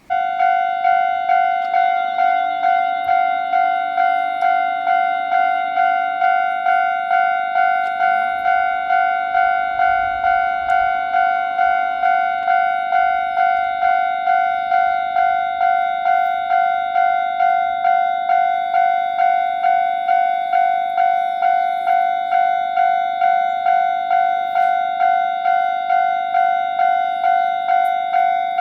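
Japanese railroad crossing warning bell ringing: a single high clanging tone struck about one and a half times a second, each strike dying away before the next. It starts suddenly, and a fainter low engine hum rises and falls beneath it in the first half.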